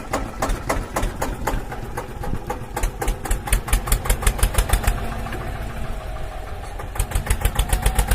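Toy tractor running, with a rapid, even engine-like chugging that quickens about seven seconds in.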